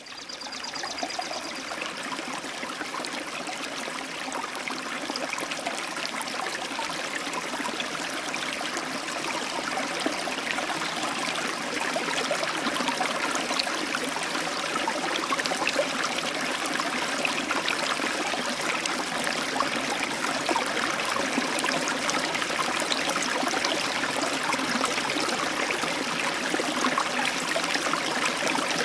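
Aquarium water trickling and bubbling steadily, full of tiny pops, growing a little louder over the first ten seconds.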